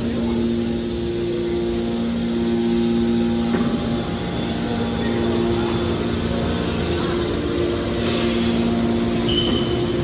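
Hydraulic scrap-metal baler's power unit running: electric motors and hydraulic pump giving a steady hum, with two held droning tones that drop out and come back.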